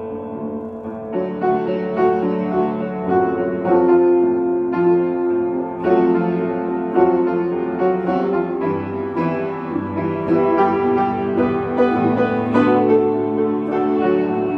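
Two electric guitars playing an instrumental passage together, clean-toned, with picked melody notes over held chords.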